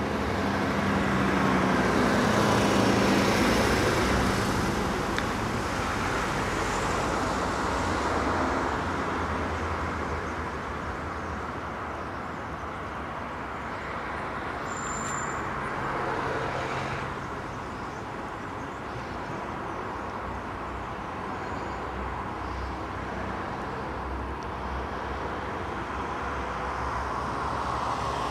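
Road traffic passing by: a steady mix of engine and tyre noise from cars and vans, swelling louder in the first few seconds and again near the end as vehicles go past.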